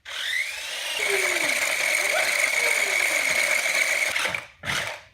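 Small electric motor of a toy remote-control kart spinning up with a rising whine, then running with a steady high whine. It cuts off about four seconds in and is followed by a short burst of noise.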